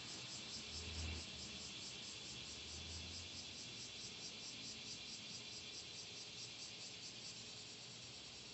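Faint, even chirping of insects, pulsing several times a second, with a brief low rumble about a second in and again around three seconds.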